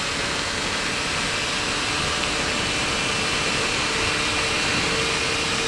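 Tuned Suzuki Satria 120R two-stroke single running flat out in sixth gear on a top-speed run, under heavy wind rush. The sound is steady and grows slightly louder.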